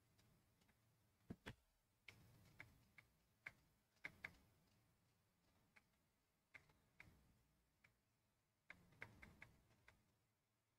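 Near silence broken by faint, sharp clicks at irregular intervals, some in quick pairs or small clusters, the loudest about a second and a half in and again about four seconds in.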